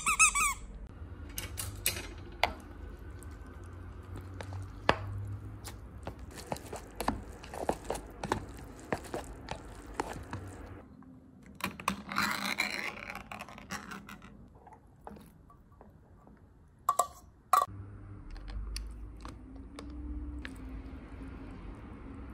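A squeaky dog toy shaped like a slice of toast squeaks right at the start, followed by scattered taps and clicks of handling. About twelve seconds in, the pull-tab lid of a can of tuna is peeled open with a scraping tear, and two sharp clicks follow a few seconds later.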